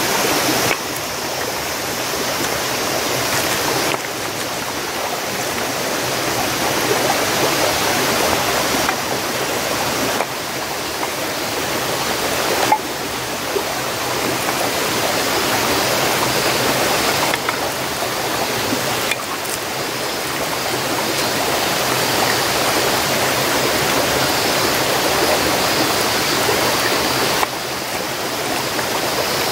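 Shallow stream running steadily over rocks, an even rush of flowing water.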